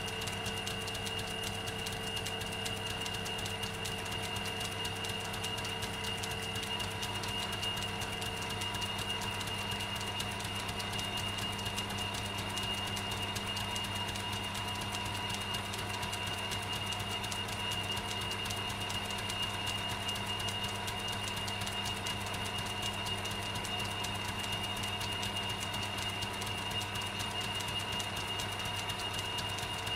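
Pillar drill (drill press) running steadily as its twist bit feeds into a flat metal bar held in a vise: a constant motor hum with a steady high whine. A lower tone in it drops out about nine seconds in.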